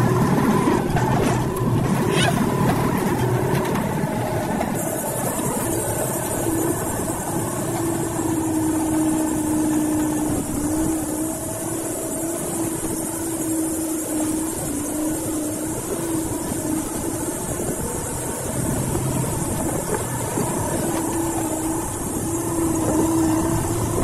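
Engine of a canvas-topped off-road vehicle droning steadily as it drives along a rough dirt track.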